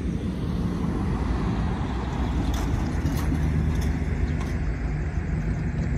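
Diesel locomotive engine running with a steady low rumble.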